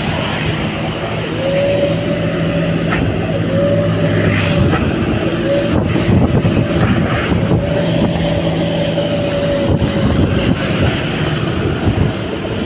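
A vehicle engine running on the move, with road and wind noise. An engine whine rises and holds several times as the speed changes.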